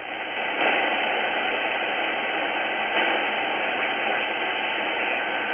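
Tecsun S-2200x shortwave receiver's speaker giving a steady hiss of band noise in lower sideband as its tuning knob is turned up through the 80-metre band, with no station coming through. The hiss gets a little louder about half a second in.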